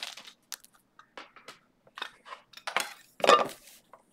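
Clear plastic card holders being handled, clicking and clattering against each other and the table: a run of short sharp clicks, with a louder rattle about three seconds in.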